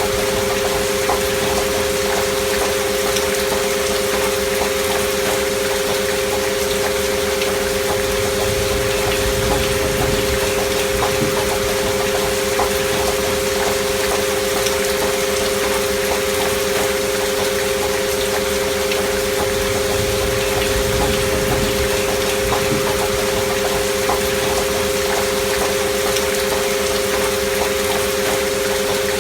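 Steady rain sound with two steady pure tones near 500 Hz held underneath, unchanging throughout: a binaural frequency track for relaxation.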